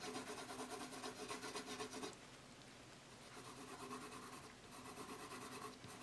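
Pencil shading on drawing paper: faint, quick back-and-forth scratching strokes, about four a second, that ease off for about a second partway through and then resume.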